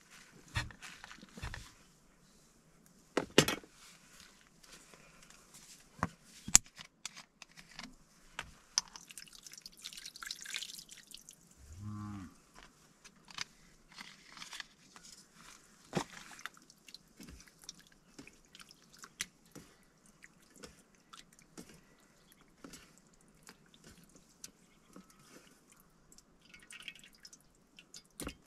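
Scattered clicks and knocks of a metal frying pan and raw chicken pieces being handled on a plastic cutting board, the sharpest about three and six seconds in, with a brief rustle around ten seconds in. A cow moos once, briefly, about twelve seconds in.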